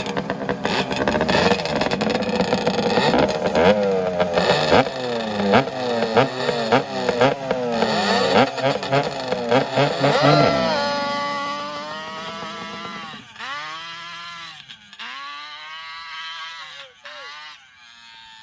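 ATV engine revving, its pitch rising and falling again and again as it accelerates and shifts. After about eleven seconds it grows steadily quieter, with long rising and falling glides, as it moves away.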